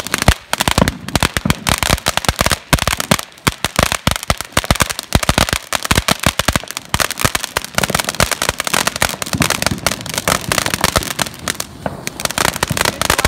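Ground fireworks fountains and spinners going off, with a dense, rapid, uneven crackle of sharp pops.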